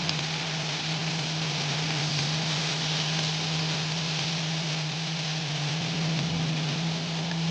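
Food sizzling steadily in a frying pan, with a steady low hum underneath.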